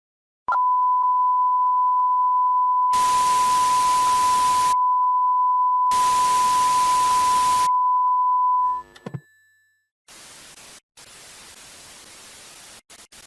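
Television test-tone beep, as played with colour bars: it comes on with a click about half a second in and holds one steady pitch, while two loud bursts of white-noise static cut across it. The tone then cuts off with a short glitchy crackle, and fainter static follows, broken by brief dropouts.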